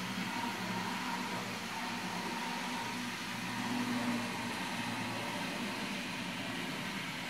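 Model train running on the layout's track: a steady small electric-motor hum with wheel hiss, swelling briefly about four seconds in.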